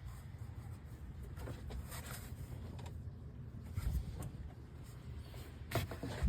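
Hands working among rubber vacuum hoses in a car's engine bay, making a few light rubs and knocks over a low steady hum. There is a soft thump about four seconds in and a sharper knock at the end.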